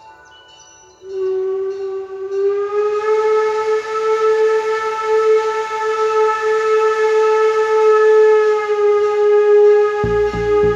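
Steam locomotive whistle sounding one long blast of about nine seconds, rich in overtones, its pitch rising slightly at the start and then held steady. Near the end a regular low pulsing of about four beats a second sets in as the locomotive approaches.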